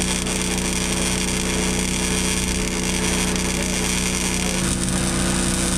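Predator portable gasoline generator running steadily under a welding load, with a MIG welding arc sizzling over it.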